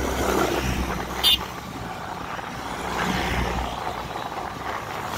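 Motorcycle riding in traffic: engine rumble and wind noise, the low rumble easing off about four seconds in. A brief sharp click about a second in.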